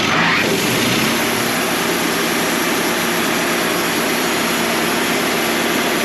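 Wood-Mizer LT35 portable band sawmill running at full speed, a loud steady rush of engine and blade noise that rises in level right at the start as the mill comes up from idle.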